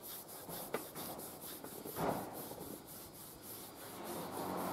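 A strip of microfiber cloth loaded with metal polish is rubbed around a crankshaft journal of a 308 V8, a soft cloth-on-metal rubbing as the journal is polished smooth after sanding.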